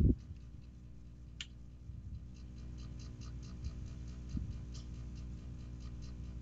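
Faint, even ticking, about four ticks a second, over a low steady hum, with one sharper click about a second and a half in.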